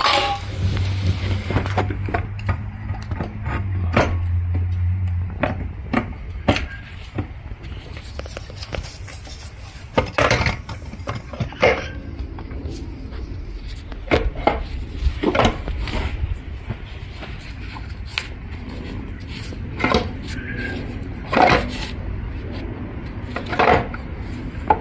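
Aluminium CVT transmission case halves and their bolts knocking and clinking as the case is lowered into place and bolted up by hand: scattered metal clicks and taps with a few short scrapes. A low steady hum runs under the first five seconds or so.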